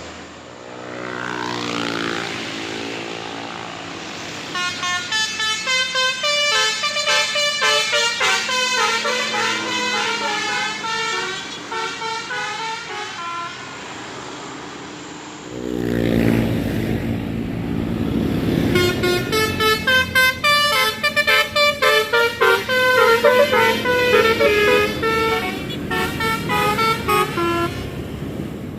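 Multi-tone telolet air horn on a tour bus playing fast, warbling melody phrases in two long runs, with a loud bus engine coming in about halfway through between the runs.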